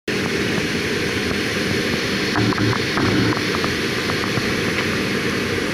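Boeing 757 airliner's jet engines running on the ground, heard as a steady cabin rumble from a window seat over the wing, with a faint steady whine above it. A few faint ticks come about two and a half to three seconds in.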